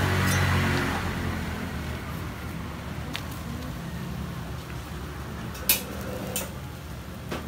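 Metal spatula scraping under a jianbing crepe on a round griddle during the first second, then a few sharp metal clicks, over a steady low hum.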